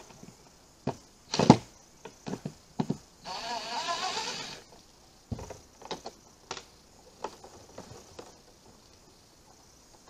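A few sharp knocks and clatters as tools and PVC pipe are handled, the loudest about a second and a half in. From about three seconds in, a goat bleats once in a long, wavering call of about a second and a half.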